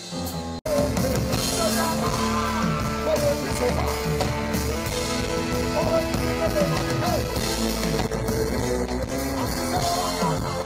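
Live band music with drums and guitar and a voice singing over it, loud and full. The sound drops out briefly about half a second in, then cuts back in.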